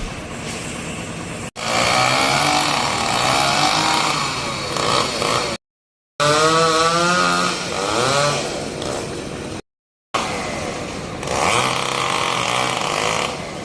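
Two-stroke chainsaw running at high revs and cutting acacia wood, its pitch dipping and rising with the load. The sound cuts off abruptly twice, a few seconds apart.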